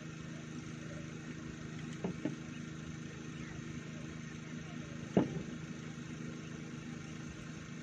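A motor running steadily at an even idle hum, with two short knocks over it: a double knock about two seconds in and a louder single knock about five seconds in.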